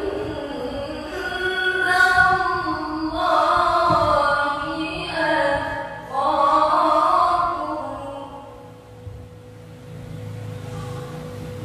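A woman's melodic Quran recitation (tartil/tilawah) into a microphone: long held phrases with ornamented, bending pitch, which end about eight seconds in. A low steady hum with a faint steady tone is left after that.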